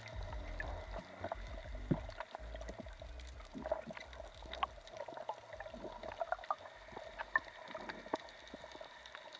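Underwater sound picked up by an action camera: a steady faint hum with many scattered small clicks and crackles, and a low rumble of water movement that is strongest in the first couple of seconds.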